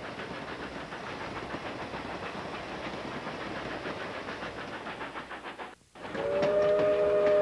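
Steam train running with a steady hiss and clatter. The sound cuts out briefly near the end, then a steam whistle blows a steady chord of several notes, louder than the running train.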